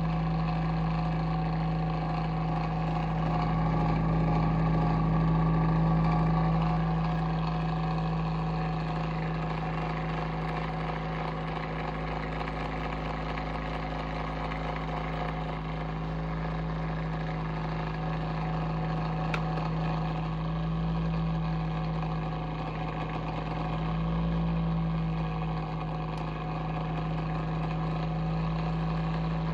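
Bionaire ceramic tower heater running with a steady low hum and several steady higher tones, swelling louder a few seconds in and again briefly near the end. The owner takes the noise for abnormal, a sign that something is wrong with the heater.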